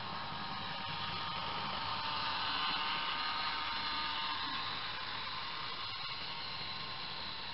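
Steady whirring hiss with a faint, wavering high-pitched whine from the small electric motors of HO-scale Faller Car System model vehicles driving along the layout's roads. It grows slightly louder about two to three seconds in.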